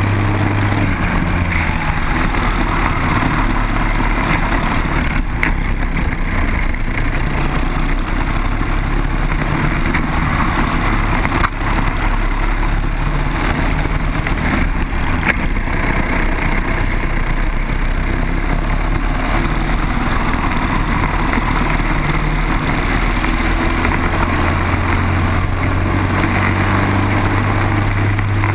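Briggs & Stratton four-stroke kart engine running at racing pace, heard close up from a kart-mounted camera. The engine note rises and falls through the corners, with a couple of brief knocks near the middle.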